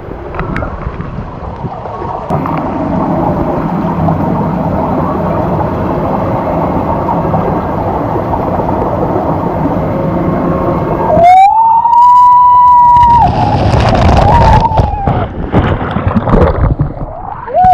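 Steady rushing of water and air down a near-vertical body water slide, then about eleven seconds in a loud held yell from the rider, with a shorter yell a few seconds later.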